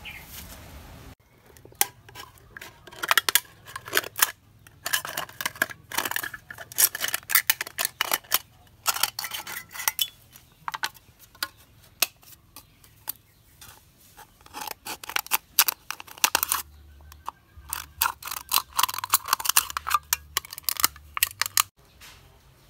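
Scissors cutting a thin aluminium drink can: a long run of sharp snips and crinkling metal, in several bursts with short pauses.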